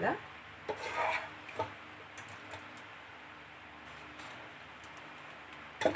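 A few soft, wet squishes and taps in the first second and a half as parboiled meat and onions are tipped into a dish of vegetables, then quiet room tone.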